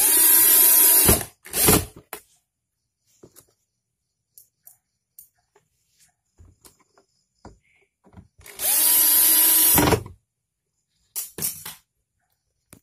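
Handheld electric screwdriver running in two bursts of about a second each, near the start and again after about eight seconds. Each burst has a motor whine that rises to a steady pitch. Between and after the bursts come small clicks and knocks of handling.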